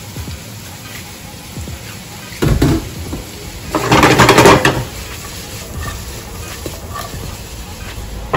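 Julienned vegetables sautéing in oil in a frying pan on a gas burner, with the pan shaken twice: a short rumble about two and a half seconds in, then a louder rattle and sizzle lasting about a second near four seconds.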